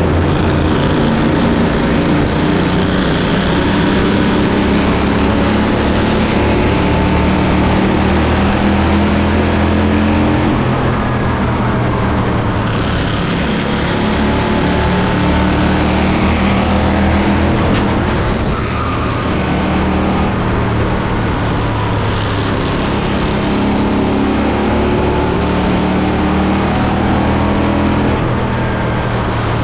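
Small race car engines running on track, their pitch rising and falling as they accelerate and lift.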